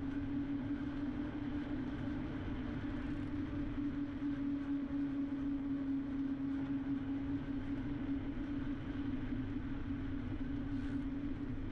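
Bicycle rolling along a paved road: a steady, unchanging hum over a low, uneven rumble of tyre and wind noise.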